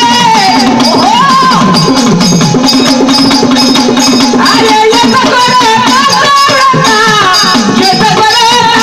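Men singing a Marathi devotional dahaka song to Mahadev, with folk percussion keeping a steady beat.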